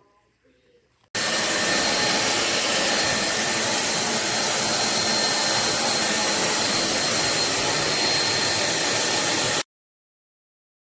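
Corded stick vacuum cleaner motor running: a loud, steady rushing sound with a faint high whine, starting abruptly about a second in and cutting off abruptly near the end.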